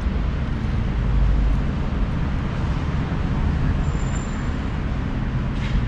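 Steady road traffic noise from a city street, an even hiss over a strong low hum with no distinct events.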